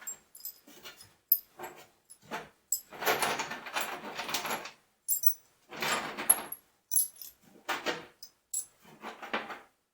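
Small steel taper pins clinking and scraping against the bottom of a metal tool box drawer as they are gathered out, in a series of irregular rattling bursts with brief metallic rings.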